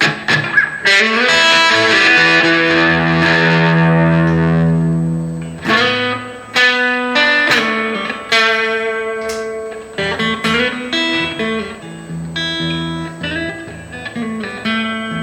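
Electric guitar, a Gibson Les Paul through an Electro-Harmonix Oceans 11 reverb pedal and a Blues Cube amp. A strummed chord rings for about five seconds, then picked single notes and short phrases follow, each left to ring and fade.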